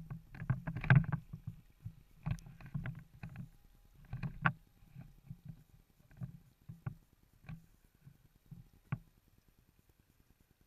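Irregular knocks and sharp clicks from a large single-action fishing reel being cranked and the rod being worked, thick at first and growing sparser toward the end.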